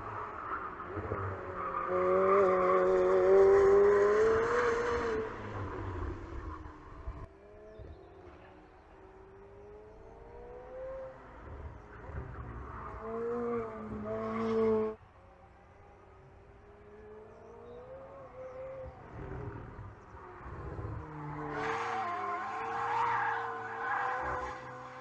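McLaren 765LT's twin-turbo V8 running hard, its engine note climbing and dropping through the gears. It swells loudest three times: a few seconds in, around the middle, where it cuts off suddenly, and near the end.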